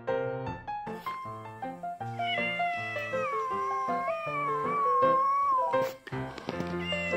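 A cat's single long, wavering meow lasting about four seconds, starting about two seconds in and sliding slightly down in pitch, over background music; a short second call begins near the end.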